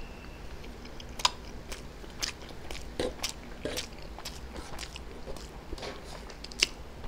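Close-miked eating sounds: a person chewing boiled egg and chow mein, with irregular sharp mouth clicks and smacks. The loudest come about a second in and near the end.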